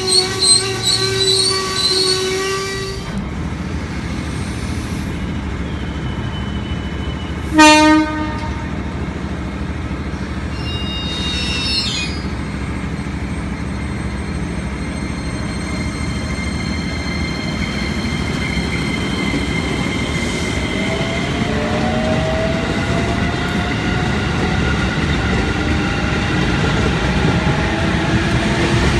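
JR 205 series electric commuter train running through the station, with a short horn blast about eight seconds in that is the loudest moment. Near the end a whine rises steadily in pitch as a train gathers speed.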